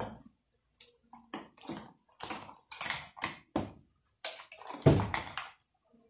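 Handling noise from hands working with small parts and tools on a workbench: a quick, irregular run of short rustling, scraping sounds, the loudest, with a dull knock in it, about five seconds in.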